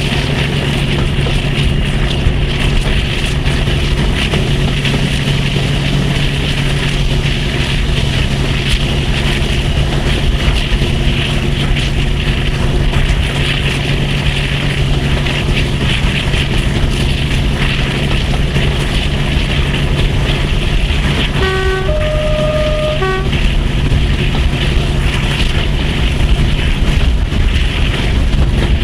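Class 42 Warship diesel-hydraulic D821's Maybach engines running under load with a steady drone, over wind and wheel noise, heard from an open carriage window of the train it is hauling. About three-quarters of the way in, the two-tone horn gives a short low note, a longer higher note and another short low note.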